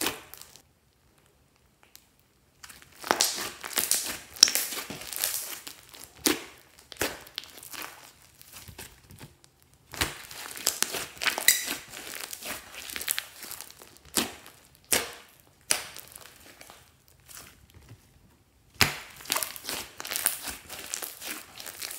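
Slime being squished and stretched by hand, giving irregular bursts of sticky crackles and clicks separated by short pauses.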